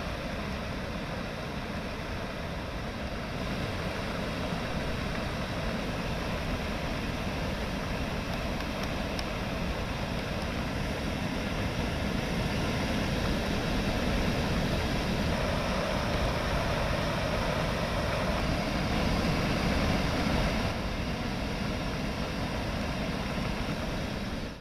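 Steady low rushing noise of floodwater pouring over an overflowing lake's spillway weir, in rain.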